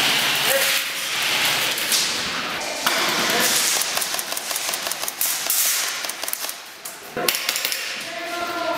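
Airsoft rifles firing: dense, rapid clicking and snapping shots, with a voice shouting near the end.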